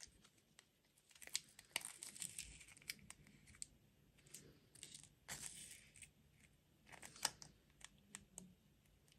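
Faint, irregular crinkling and tearing of a snack or candy wrapper being handled and opened.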